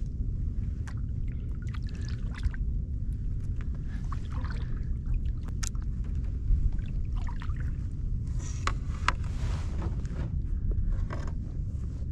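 Paddle strokes in calm water from a pirogue, a splash and drips every couple of seconds, with a few light knocks of the paddle against the hull, over a steady low rumble.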